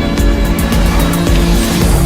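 Loud, dramatic soundtrack music with a steady beat, and a rushing whoosh swelling near the end.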